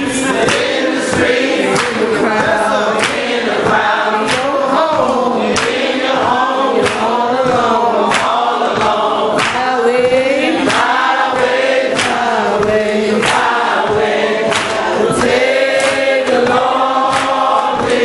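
Congregation of men's and women's voices singing a slow hymn together without instruments, with sharp taps sounding along roughly twice a second.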